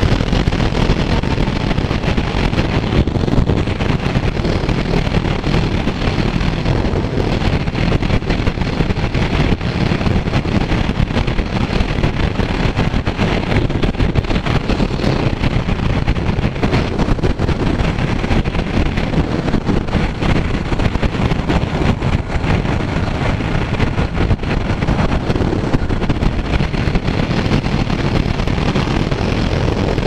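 Kawasaki Z900 motorcycle under way: its inline-four engine running steadily under a constant rush of wind on the microphone.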